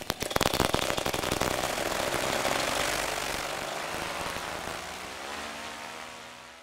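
Paramotor engine and propeller running at high power during a launch and lift-off, with knocks and buffeting on the microphone in the first second. The engine sound then fades steadily away.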